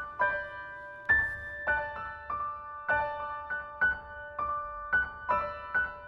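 Background music: a soft piano-like keyboard melody, notes struck about three times a second, each ringing and fading.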